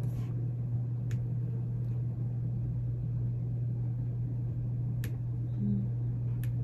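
Steady low hum of a small room, with three short sharp clicks: one about a second in and two more near the end.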